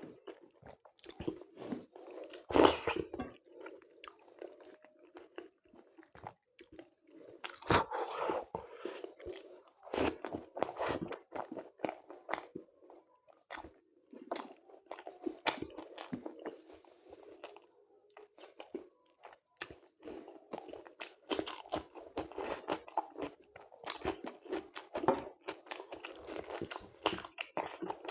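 A person eating close to the microphone: irregular crunching bites and wet chewing and mouth smacks, a meal of chicken curry with luchi and salad. The loudest bites come about two and a half seconds and eight seconds in.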